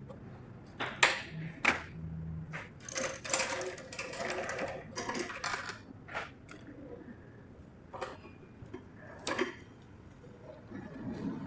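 Irregular clicks, knocks and scraping, with a short low hum about one and a half seconds in, as tools and metal parts are handled during e-bike motor repair work.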